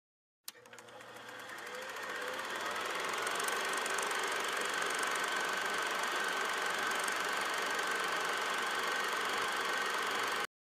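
Motor scooter engine running steadily, with a faint steady whine over it; the sound swells up over the first few seconds and cuts off suddenly near the end.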